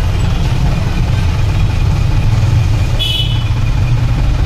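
Steady low rumble of road traffic, with a brief high-pitched tone about three seconds in.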